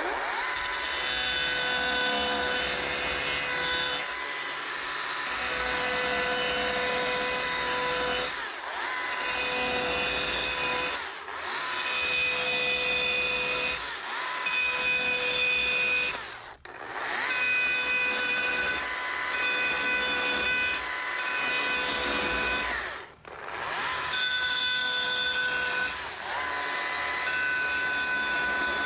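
Stihl chainsaw running in spells of a second or two as the nose of the bar cuts shallow letter grooves, a quarter to half an inch deep, into a wooden welcome sign. The pitch holds steady through each spell, with two brief drops in loudness partway through.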